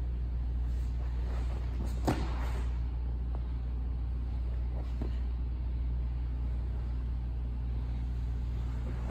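Jiu-jitsu partners shifting and rolling on a foam mat, with one thump about two seconds in, over a steady low hum.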